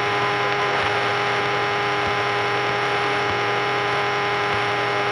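Cessna 172's engine and propeller droning steadily at climb power, heard through the cockpit audio as an even hum with several fixed tones.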